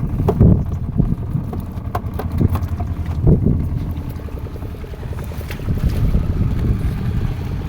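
Fishing boat's engine running steadily with a low, fast pulsing, with wind on the microphone and a few scattered knocks.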